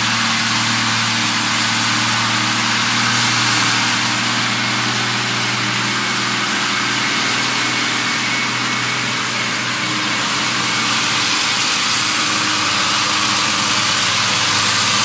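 A large farm tractor's diesel engine running steadily under load, with a loud even hiss over it.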